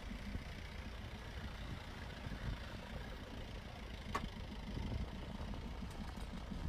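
Safari jeep's engine idling with a low, steady rumble, and one sharp click about four seconds in.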